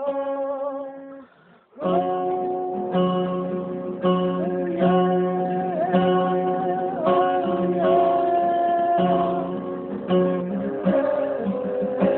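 Acoustic guitar strumming steady chords in a song, with a voice singing a wavering melody over it. A held sung note fades out about a second in, and the strumming starts after a short pause.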